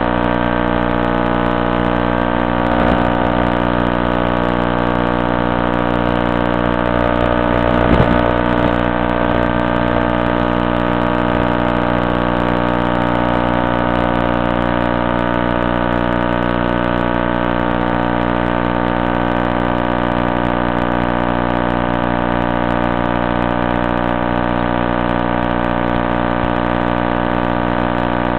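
Steady electronic buzz of many unchanging tones, with a small bump about eight seconds in. It stays the same as the plane glides down and lands, so it is interference on the FPV link's audio rather than a motor.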